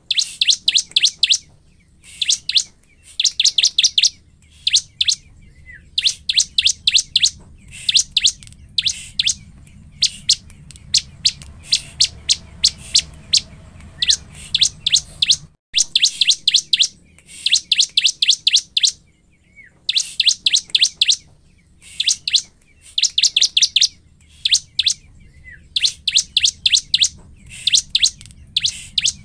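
Bar-winged prinia (ciblek) singing: fast trains of sharp, high chirps in bursts of about a second, one after another with short gaps. It is the loud song of a 'gacor' bird, used as a lure call to provoke another ciblek.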